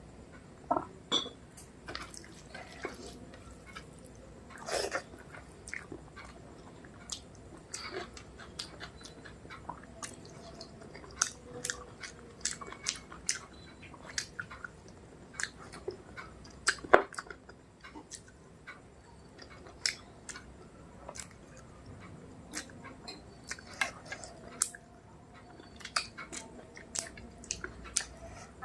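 Close-miked eating sounds: a person chewing rice and mutton curry, with many irregular sharp, wet mouth clicks and smacks.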